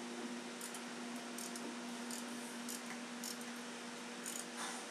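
Ratcheting wrench clicking as it turns a stud extractor to back a broken exhaust manifold stud out of the cylinder head; faint, irregular clicks over a steady low hum.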